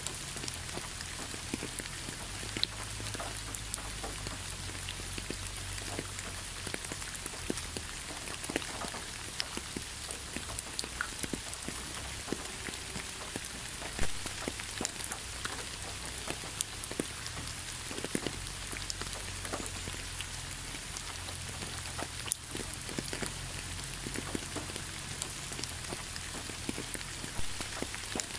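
Steady rain falling on fallen leaves and a wet road: a constant hiss dotted with close drops tapping, one louder tap about halfway through.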